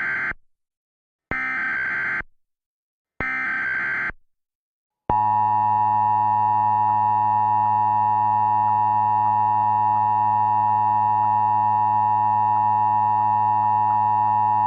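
Emergency Alert System signal: the end of one SAME data burst and two more full bursts of digital screech, about two seconds apart, then about five seconds in a loud, steady attention tone that holds until the end.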